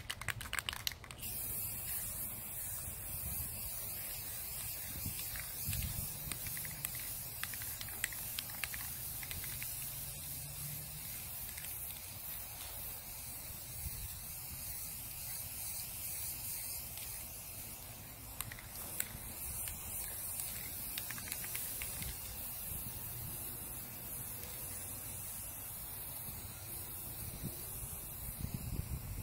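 Aerosol can of Rust-Oleum metallic gold spray paint hissing steadily as it sprays.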